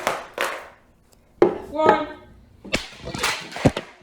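A plastic speaker casing being struck hard and broken apart, giving sharp cracks and clatter. There is one crack about a second and a half in, then a longer run of cracking and clattering near the end as a blow knocks the casing's sides off.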